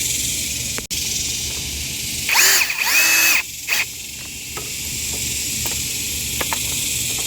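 Power drill-driver running screws in, two short spins a little over two seconds in, each whining up in pitch and settling, with a brief third blip just after.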